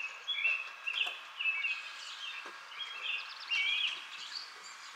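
A songbird chirping, a quick run of short high notes with a brief warbled phrase in the middle, over a faint outdoor hiss.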